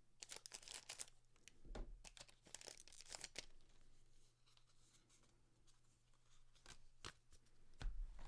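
Faint crinkling and tearing of a trading-card booster pack wrapper being handled and opened, in scattered crackles that die down midway and pick up again with a few sharp clicks near the end.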